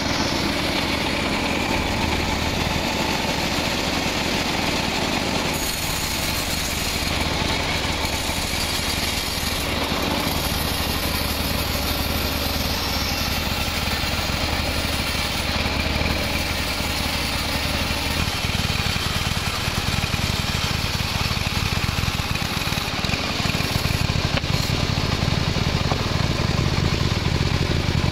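Band sawmill running steadily, its blade sawing through a teak log, with a constant low engine hum under the cutting noise; a little louder near the end.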